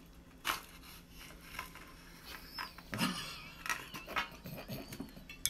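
A knife and pie server scraping and tapping in a foil pie tin as a slice of sweet potato pie is cut and lifted out, with a sharp click about half a second in. In the second half, high wavering giggles and laughter come through.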